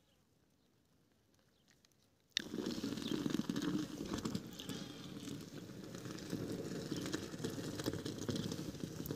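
Frothy fresh camel's milk poured in a thick stream from a steel bowl into a steel milk pot, splashing steadily into the pot. The pour starts suddenly a little over two seconds in, after near silence.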